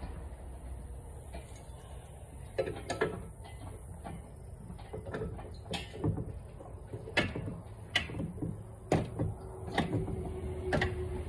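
Sharp metal clicks and clinks, a dozen or so at irregular intervals, as lug nuts are handled and fitted on an RV wheel, over a steady low hum.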